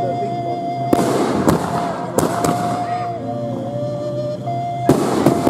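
Aerial fireworks bursting: a string of sharp bangs, four in the first half and two more near the end, with a gap of about two seconds between them.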